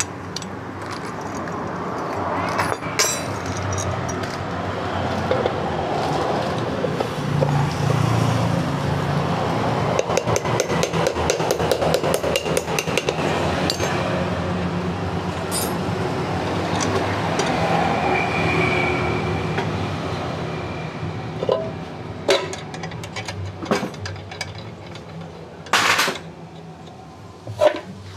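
Metal hand tools and scooter kick-starter parts clinking and knocking during a repair, with a run of rapid clicking about ten seconds in.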